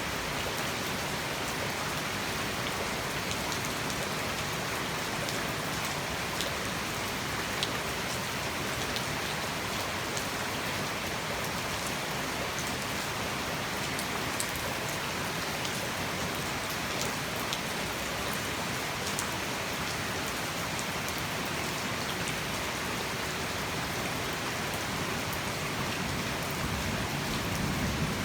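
Heavy tropical rain pouring steadily, with scattered sharp raindrop ticks now and then.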